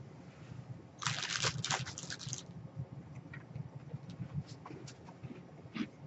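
A person moving in a chair and getting up. A short burst of rustling and crackling comes about a second in, followed by scattered light clicks and knocks.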